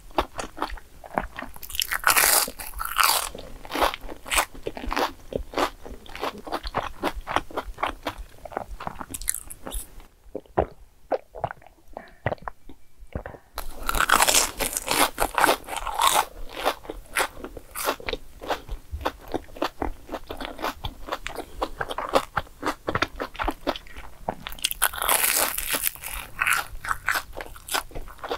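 Close-miked biting and crunching of a fried glutinous-rice cheese ball, its crisp crust crackling in quick clusters of crunches, with three heavier bouts of biting. For a few seconds near the middle the chewing is muffled.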